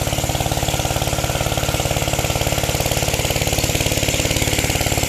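A small engine running steadily at a constant speed, with a rapid, even beat.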